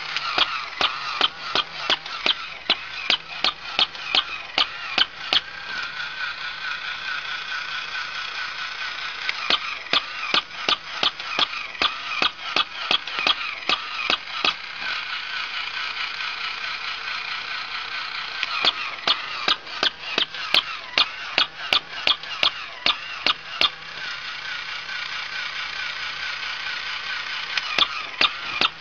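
Battery-powered walking plush toy dog's gear mechanism clicking about three times a second in four separate runs as it walks, with pauses of a few seconds between them. A steady high-pitched wavering sound from the toy runs underneath.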